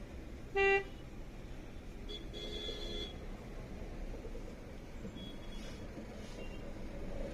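Road traffic running steadily, with vehicle horns honking: a short, loud toot about half a second in, then a fainter, longer honk around two seconds in and brief faint toots later.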